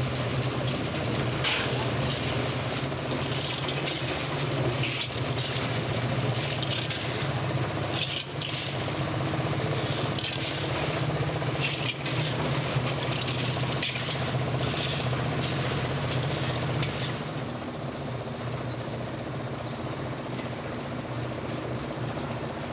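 Concrete mixer's engine running steadily at the building site, with repeated short scraping bursts of shovels working sand and gravel. About three quarters of the way through the scraping stops and the whole sound drops a little quieter, the engine hum going on.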